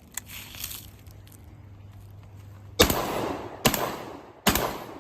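Three shots from a JTS AR-style semi-automatic 12-gauge shotgun, fired in quick succession a little under a second apart, starting about halfway in. A few faint clicks come just before.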